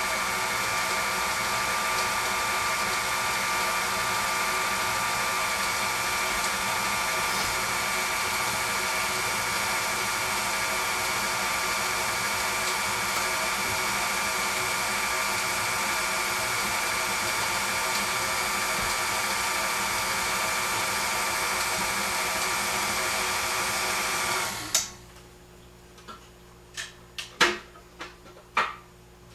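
KitchenAid Artisan stand mixer motor running steadily with a whine of several steady tones as its beater works cookie batter in a glass bowl; it switches off abruptly about 25 seconds in. A handful of sharp clicks and knocks follow near the end as the bowl and mixer head are handled.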